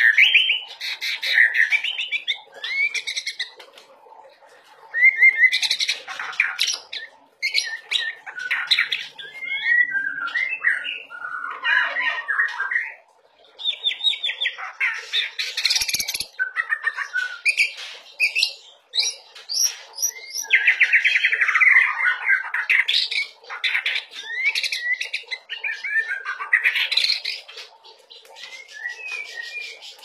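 White-rumped shama (murai batu) singing hard in full song: phrase after phrase of quick repeated notes and sliding whistles, with short breaks between phrases.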